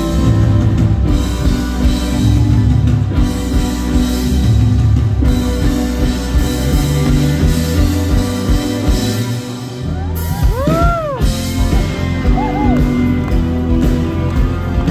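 Live rock band playing through a large outdoor PA, heard from within the crowd: drums, bass, electric guitar and keyboards. About ten seconds in, a sliding note rises and falls in an arch, repeated briefly about a second later.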